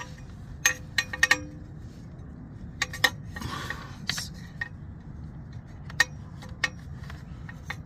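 A 15 mm socket on an extension clinking against a motorcycle's oil filter as it is tried for size: about ten sharp, irregular metal clinks, with a short scrape about halfway through.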